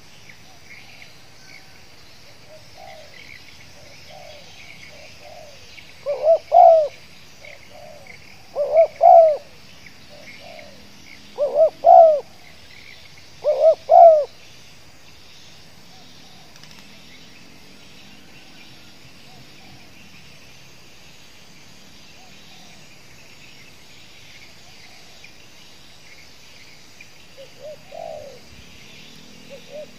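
Spotted dove cooing in short stuttering phrases, the "gagap" style: four loud phrases about two to three seconds apart in the first half, then two fainter ones near the end. Faint insect and bird chirping runs underneath.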